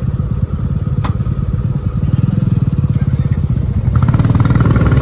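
Motorcycle engine running, with a sharp click about a second in; about four seconds in the engine gets louder and brighter as the throttle opens.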